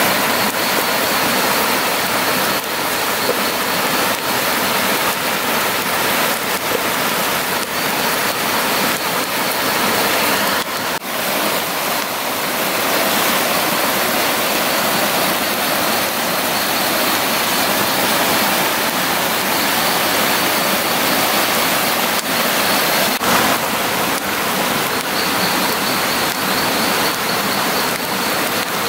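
Rain falling steadily, a dense even hiss, briefly dipping about eleven seconds in.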